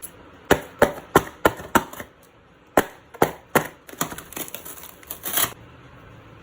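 A series of sharp clicks: about five quick ones in the first two seconds, a short pause, then three more, and then a faster run of clicks that stops about five and a half seconds in.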